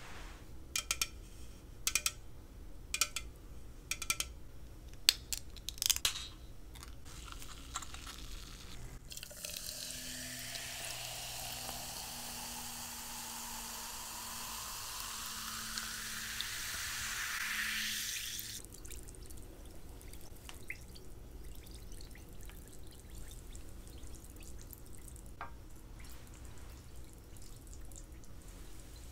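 A run of sharp clicks and taps on the soda can, then a carbonated drink poured from the can into a glass mason jar over ice for about nine seconds, the pouring tone rising steadily in pitch as the jar fills, until it stops. Faint fizzing crackle follows.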